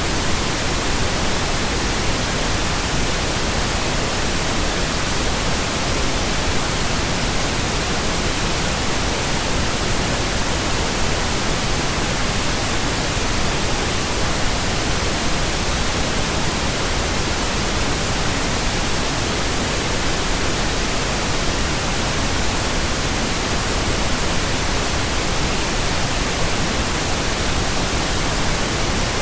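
Steady, unbroken pink noise: an even hiss spread across all pitches, unchanging throughout.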